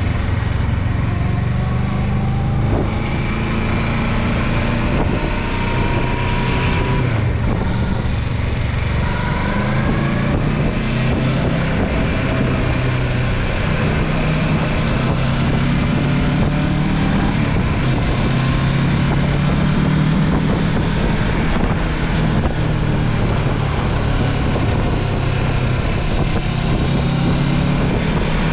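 A car engine and road noise while driving, the engine note rising and then dropping back several times.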